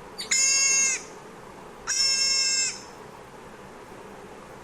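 A deer calling twice: two high calls of steady pitch, each under a second long, about a second apart.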